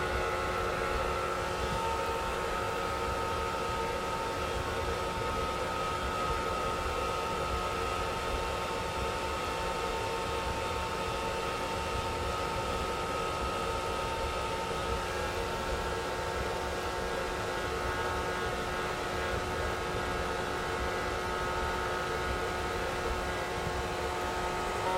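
Hair dryer running steadily, its motor and fan giving several steady whining tones over an even hiss, mixed with the hiss of rain.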